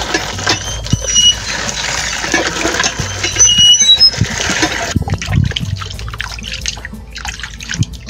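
Water pouring in a stream into a plastic basin of cut raw beef, filling it, for about five seconds; then it stops and hands splash and squeeze the meat pieces in the water as they are washed.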